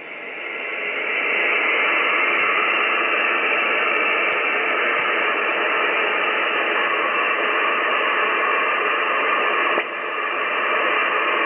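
Icom IC-7300 HF transceiver on 20-metre upper sideband giving out steady band noise (hiss/static) through its speaker, with no station readable. The hiss fills in over the first second or two after the operator stops transmitting and dips briefly about ten seconds in.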